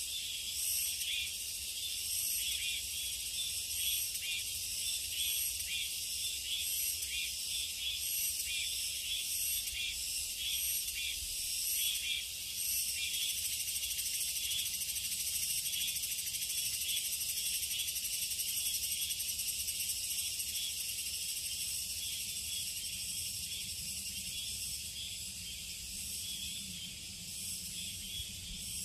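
A dense chorus of summer insects in a forest, a high-pitched buzzing that pulses rapidly and evenly, with a faint low rumble underneath.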